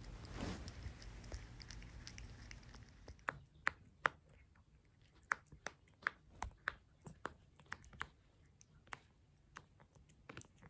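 A low steady rumble, then, from about three seconds in, a cat biting and chewing on a string toy: faint, irregular sharp clicks and crunches.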